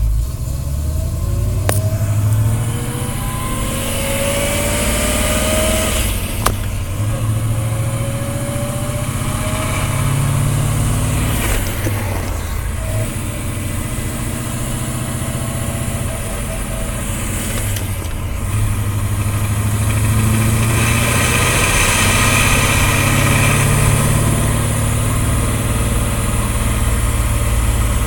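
1969 Pontiac GTO's V8 drivetrain running, with a grinding noise coming up through the transmission tunnel. There are several rising whines in the first several seconds. The noise shows up only with the rear wheels on the ground and goes away with the rear axle up on jack stands.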